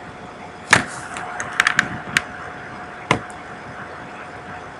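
Sharp clicks of a computer mouse: one about three-quarters of a second in, a quick run of three around a second and a half, and single ones a little after two and three seconds, over a faint steady hum.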